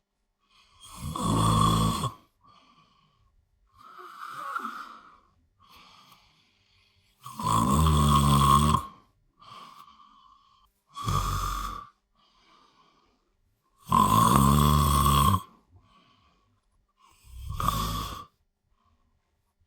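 A person snoring heavily in a slow, regular rhythm: three cycles, each a long loud snore followed a few seconds later by a shorter, quieter one.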